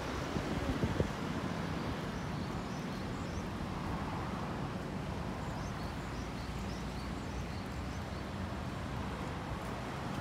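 Street ambience: steady traffic noise from passing road vehicles with wind on the microphone, a few light knocks in the first second and a scatter of faint high chirps in the middle.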